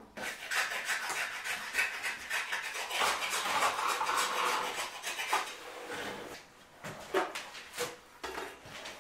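Pointed trowel scraping and spreading wet cement over a cabinet top. A rough, rasping scrape runs almost without a break for the first five seconds or so, then gives way to a few shorter separate scrapes.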